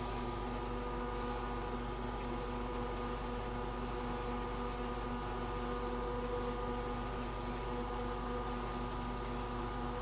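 Aerosol can of Rust-Oleum 2X semi-gloss white spray paint hissing in short, quick bursts, about one and a half a second, as light coats go onto a 3D-printed R2-D2 body. A steady electrical hum runs underneath.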